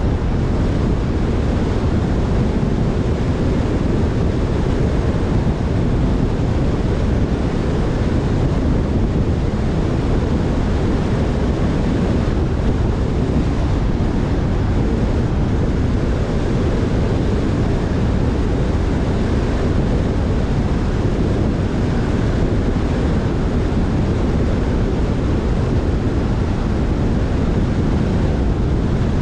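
Steady rush of wind and road noise from a moving car, heard through the camera's microphone with wind buffeting it.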